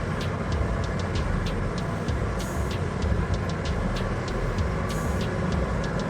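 Heavy mining machinery running with a steady low rumble, with regular faint high ticking over it and a short hiss about every two and a half seconds.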